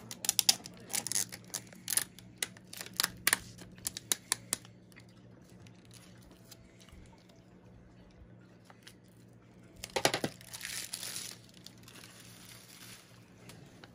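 Plastic shrink wrap being peeled and torn off a DVD case: sharp crackling and crinkling through the first four seconds or so. After a lull, there is another burst of crinkling about ten seconds in.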